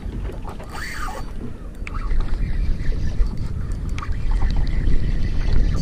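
Wind rumbling on the microphone over water noise around a small open fishing boat, with a few faint clicks.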